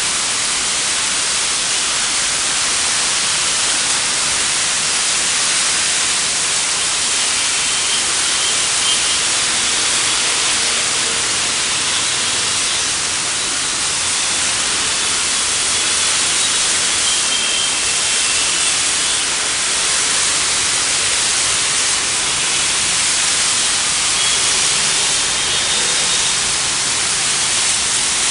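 Heavy rain falling, a loud steady hiss, with a few faint brief high tones now and then.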